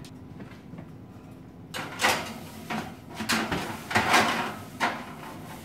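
A metal cookie sheet carrying a foil-covered casserole dish slid onto an oven's wire rack: a quick run of scrapes and clatters, starting about two seconds in and ending near five seconds.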